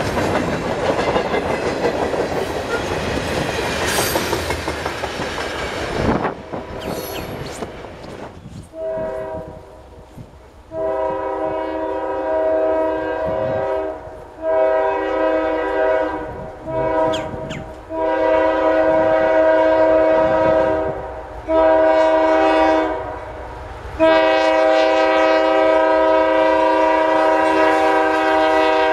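The last cars of a freight train rolling past with clattering wheels. Then a CSX diesel locomotive's multi-chime air horn sounds a string of long blasts for a grade crossing as the train approaches, the last blast held longest.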